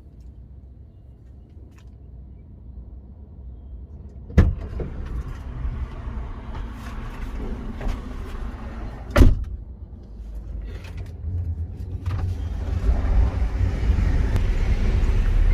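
Car with a low engine and road rumble, broken by two sharp thumps about four and nine seconds in. The rumble grows louder toward the end.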